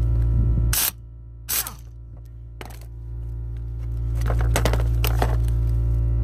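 Background music with a steady low drone. It drops sharply in level about a second in and builds back up over the next few seconds. A few short, sharp clicks and knocks sound over it.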